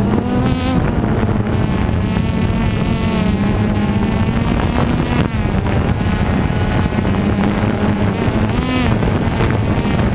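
DJI Phantom 2 quadcopter's motors and propellers buzzing steadily, heard from the camera on the drone itself, their pitch shifting up and down. Wind buffets the microphone throughout.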